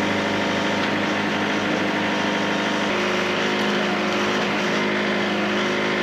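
An engine running steadily at a constant speed, with no revving.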